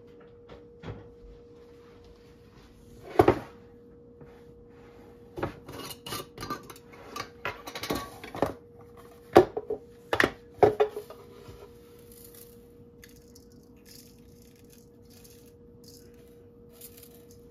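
Kitchen containers and spice jars knocking and clinking against the countertop and a stainless steel bowl as seasoning is taken out and sprinkled on fish. There is one loud knock about three seconds in, then a run of small clatters, then three sharper knocks, all over a faint steady hum.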